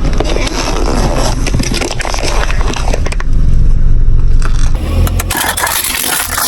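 Car tyre rolling over and crushing crunchy objects: continuous crackling and crunching with many sharp snaps, over a low engine rumble that is strongest in the middle.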